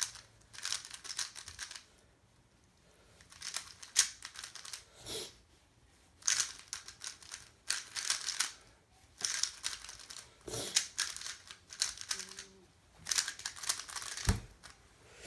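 A 3x3 speedcube being turned fast by hand: bursts of rapid plastic clicking and clacking as the layers snap round, with pauses of about a second between them. There is a single low knock near the end.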